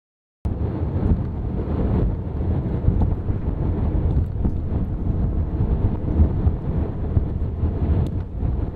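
Wind buffeting the microphone: a steady, loud, low rumbling noise that starts abruptly about half a second in.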